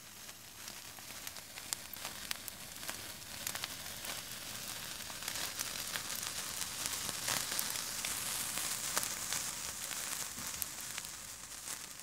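Hand-held sparklers burning with a steady fizzing hiss and dense tiny crackles, growing louder towards the middle and fading away near the end.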